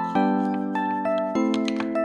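Background music: sustained chords with a simple melody over them, the chord changing about a second in.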